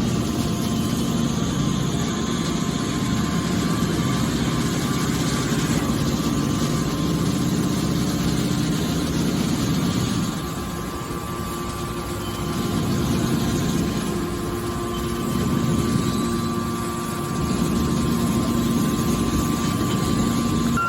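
Hydraulic scrap-metal baler running: a steady machine hum from its motor and pump. It drops a little about ten seconds in, then picks up again.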